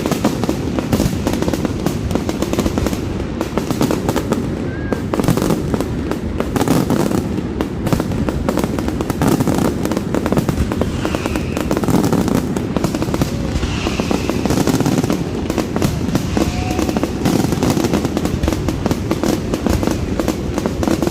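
Fireworks display: a continuous, dense barrage of rapid bangs and crackling with no let-up.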